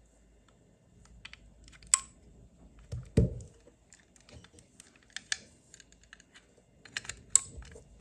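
RJ45 plugs being pushed into the ports of a Klein Tools Scout Pro 3 cable tester and its remote, with the plastic tester handled on a table: a run of light plastic clicks and taps, a sharp snap about two seconds in and another near the end, and a dull thump about three seconds in.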